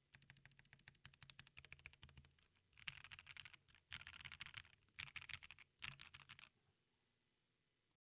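Typing on a KBDFans Tiger80 Lite mechanical keyboard with stock Gateron Irene switches, a polycarbonate plate, no foam and ABS keycaps: a quick run of keystroke clicks, then four louder bursts of fast typing, stopping about six and a half seconds in.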